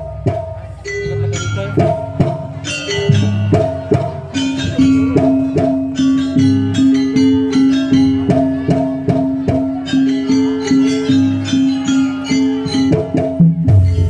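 Live jaranan gamelan music: drums and struck metal percussion keep a steady beat. A sustained pitched note enters about a third of the way in and is held until near the end.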